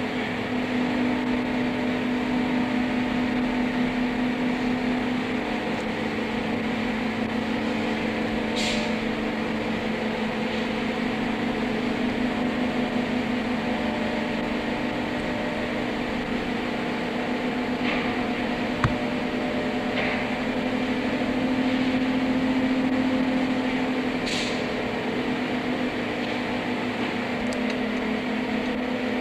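Steady mechanical hum of factory packing-line machinery, with a short hiss twice and a single sharp click about two-thirds of the way through.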